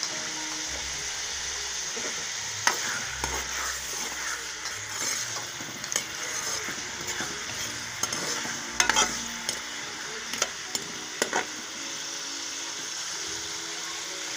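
Sliced onions sizzling in hot oil in a metal pan. Through the middle stretch a metal spoon scrapes and clinks against the pan as they are stirred, loudest a little past halfway; the sizzle goes on alone near the end.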